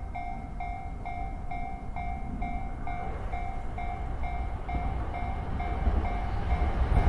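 Electronic warning bell of a Japanese railway level crossing ringing a steady, evenly repeating ding about twice a second. Under it a train approaches, its rumble growing louder toward the end.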